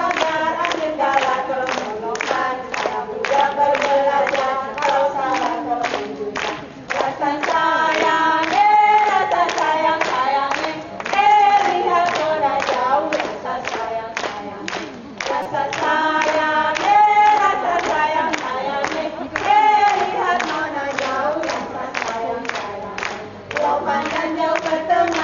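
A group of voices singing together over a steady beat of sharp claps, about three a second.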